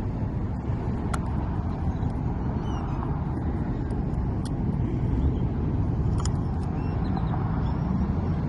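Steady low rumble of road traffic, with a few faint sharp clicks about a second in, midway and about six seconds in.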